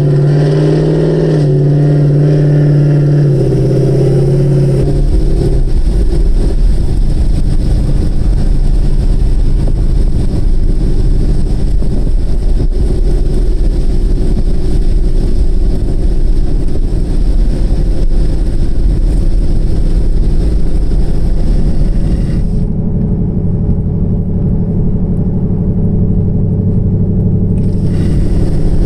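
2018 Mustang GT's 5.0 Coyote V8 running through a free-flowing exhaust with Borla S-Type axle-back mufflers while the car is driven. It starts as a steady engine drone, and after about five seconds becomes a louder, deep rumble.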